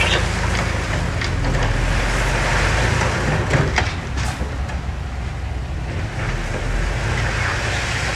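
Heavy earthmoving machine's diesel engine running steadily, with a few sharp clanks about three and a half to four seconds in.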